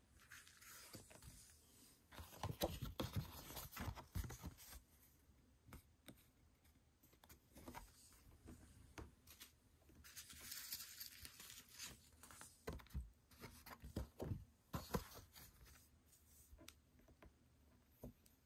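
Paper and card rustling and sliding as album inserts and photocards are handled, with a few light taps as they are set down, in short scattered bursts.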